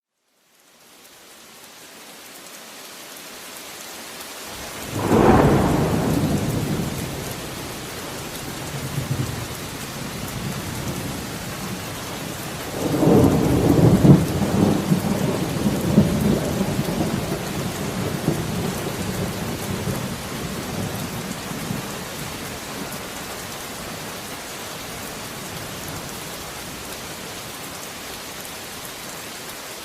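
Thunderstorm: steady rain fading in over the first couple of seconds. A sharp thunderclap about five seconds in dies away into a rumble. A second, longer peal of thunder from about thirteen seconds rolls on for several seconds before fading back to steady rain.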